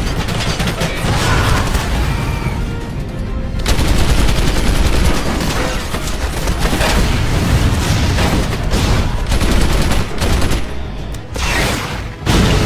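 Film sound mix of a fighter jet's cannon fire strafing: rapid gunfire with bullet impacts, laid over loud dramatic music.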